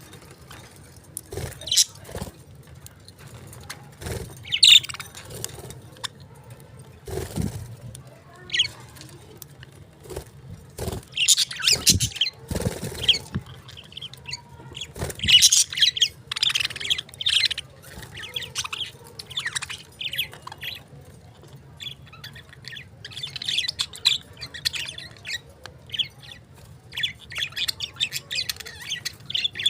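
Small pet parrots chirping in short, irregular bursts, with a few sharp knocks in between and a low hum underneath.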